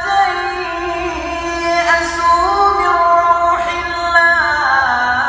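A man reciting the Quran in a melodic chant, drawing out long held notes that glide slowly up and down in pitch.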